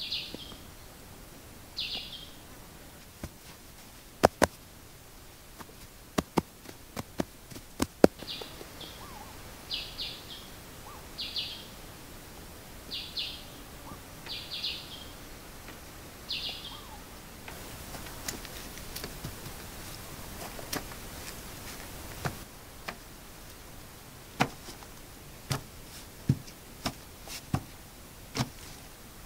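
A bird repeating a short, high chirping call about eight times over the first half, against quiet forest ambience. Scattered sharp taps and knocks, the loudest sounds, come in small clusters.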